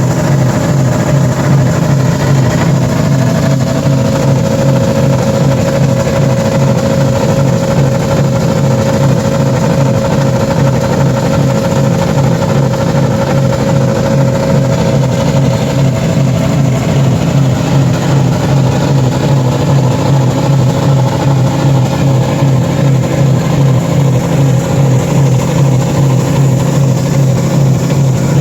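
Car engines in scrap cars, left running steadily under a held throttle as they are deliberately run to destruction. A steady throbbing hum with a higher whine over it from a few seconds in until past the middle.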